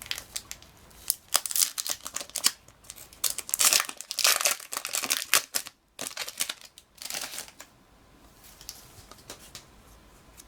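Wrapper of a 1996 Japanese Pokémon Jungle booster pack crinkling and tearing as it is opened, a run of rustles that dies down after about seven seconds into quieter handling of the cards.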